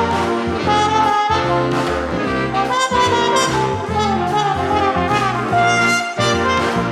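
Upbeat background music led by brass, with trumpet- and trombone-like lines over a steady bass beat.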